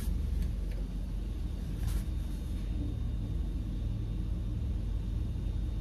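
A 2017 Hyundai Tucson's engine idling, a steady low rumble, while the car waits stationary in a drive-through lane.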